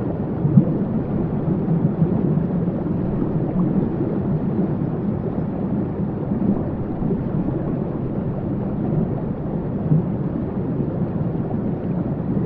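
Waterfall: a steady, low rush of falling water, even in level.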